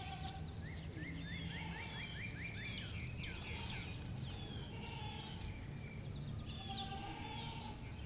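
Outdoor ambience of several small birds singing and chirping, with a quick run of rising chirps in the first couple of seconds, over a steady low background rumble.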